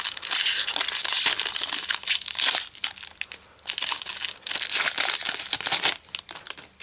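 A Topps Chrome football card pack's wrapper being torn open and crinkled by hand, a crackly rustling in bursts with short pauses that dies away near the end.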